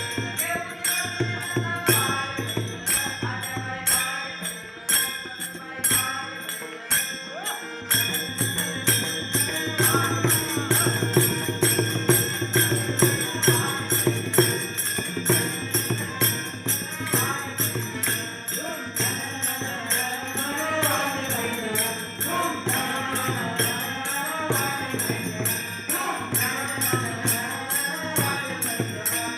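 Marathi devotional bhajan music: jingling hand percussion keeps a steady, even beat throughout, and a singing voice carries a melody from about ten seconds in.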